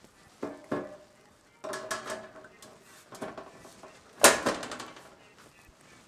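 Metal side panel of a PC case being fitted to the case frame: a series of metal clanks and rattles as its pegs are seated into the frame's cutouts. The loudest clank comes about four seconds in and rings briefly.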